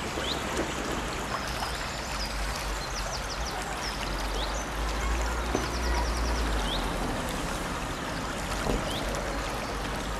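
Small brook babbling steadily, with birds chirping over it: short high chirps every couple of seconds and two quick trills. A low rumble runs underneath, strongest around the middle.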